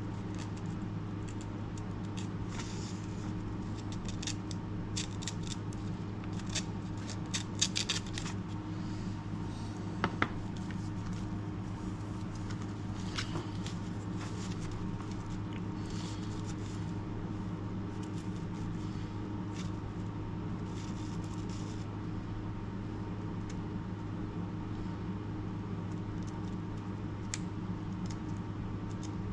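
Steady low hum in a workshop, with scattered light scrapes and sharp ticks as a knife edge is worked by hand. The ticks are thickest in the first third, and the two loudest come about ten seconds in.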